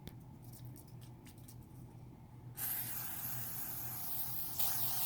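A perfume spray bottle sprays one long steady hiss of about two and a half seconds, starting around halfway through, used as the sound of air freshener being sprayed.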